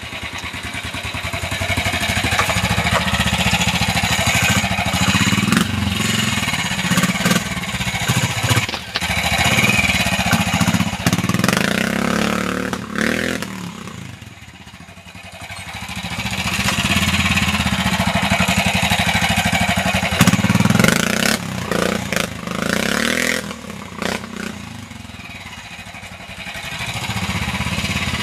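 Vintage trial motorcycle engine working at low speed, blipped and revved over and over, its pitch rising on each throttle opening and dropping back between them. It eases off to a quieter run about halfway through, then picks up again, with occasional sharp knocks.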